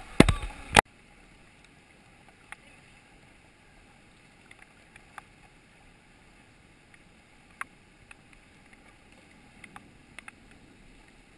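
Kayaking on a river: a loud rush of rapids and wind buffeting the camera microphone for under a second, cut off abruptly. Then quiet flat water with scattered small drips and splashes from the kayak paddles.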